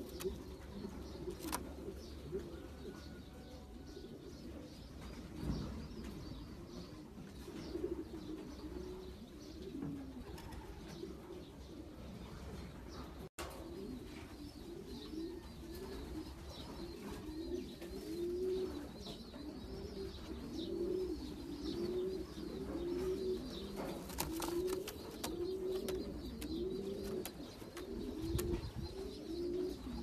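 Racing pigeons cooing, one low rolling coo after another, more densely in the second half, with a brief break in the sound about thirteen seconds in.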